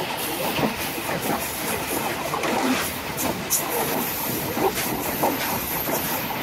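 Passenger train coach running along the track at the rear of the train: a steady rushing rumble broken by irregular sharp clicks and knocks of the wheels over rail joints.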